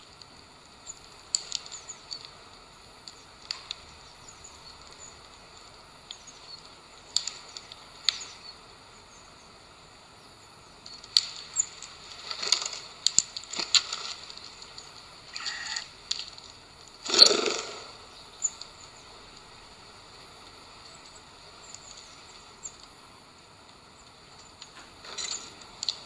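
Eurasian bullfinches feeding on a seed-covered feeder platform: scattered sharp clicks and taps of beaks and feet among sunflower seeds, with a short, louder burst of wingbeats about two thirds of the way through as a bird lands or shifts.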